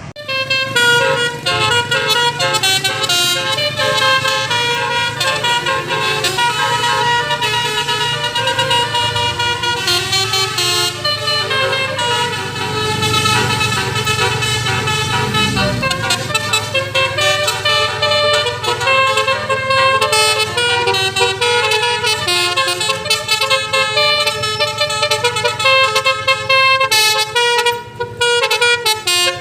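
Basuri telolet musical horn on a car, its roof-mounted horn trumpets playing a quick melody of many short horn notes, with a steady low hum beneath.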